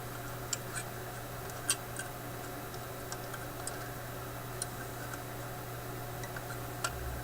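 Irregular small, sharp clicks and taps of hand tools working on a radio chassis during capacitor replacement, about eight over a few seconds, the sharpest a little under two seconds in and another near the end. A steady low hum runs underneath.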